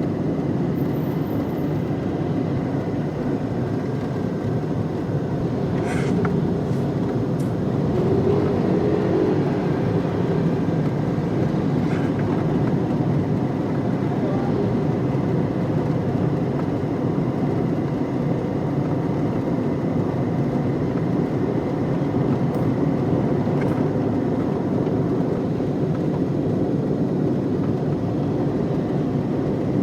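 Interior ambience of a moving car: a steady low road-and-engine rumble heard from inside the cabin, with a few faint clicks and rattles.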